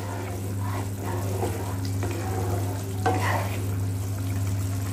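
Thick masala gravy bubbling and sizzling in a pan as it is cooked down, stirred with a wooden spatula, with a few short scrapes about a second in and again near three seconds. A steady low hum runs underneath.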